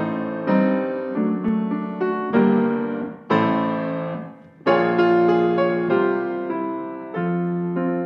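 Solo piano playing the introduction to a song, chords struck and left to ring. The piano nearly stops just before a strong chord about four and a half seconds in.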